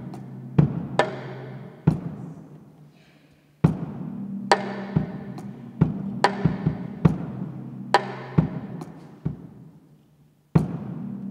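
Sparse, free-time drumming on a drum kit with an electronic sampling pad: single strikes and crashes left to ring and fade over a low held tone. It dies away almost completely twice before the next hit.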